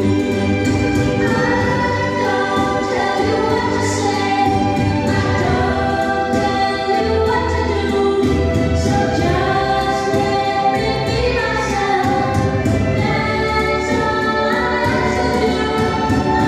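Music with a choir singing sustained, slowly changing chords.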